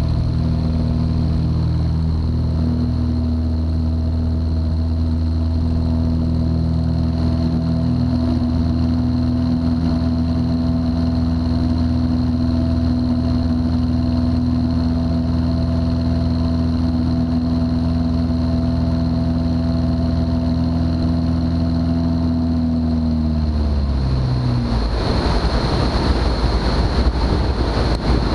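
Light-aircraft piston engine of a 1957 Cessna 172 running steadily, a constant drone with a strong even hum. About 24 seconds in the engine tone sags slightly and gives way to a loud rush of wind noise.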